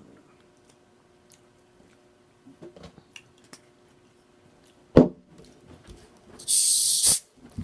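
Soft mouth clicks of someone eating, then a sharp thump about five seconds in, followed near the end by a short, loud hiss.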